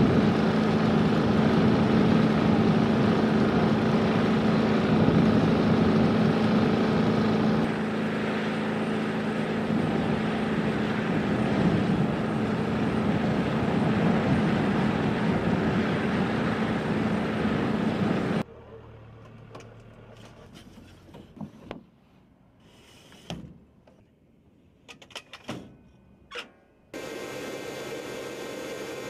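Machinery running steadily with a constant low hum, cutting off suddenly about two-thirds of the way through. A quiet stretch with a few sharp clicks and knocks follows, then a quieter steady hum starts near the end.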